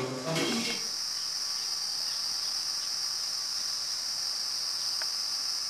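Insects chirring in one steady, high-pitched drone.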